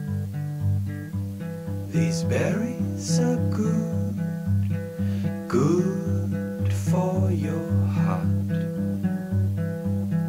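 Plucked acoustic guitar music with a steady, repeating low note pattern; sweeping higher notes join about two seconds in.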